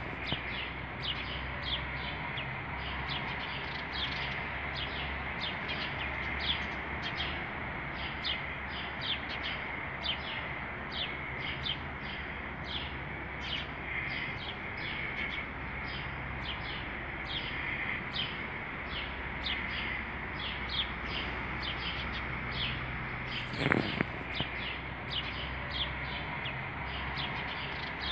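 Small birds chirping continuously, about two short chirps a second, over a low steady hum. A single knock comes late on.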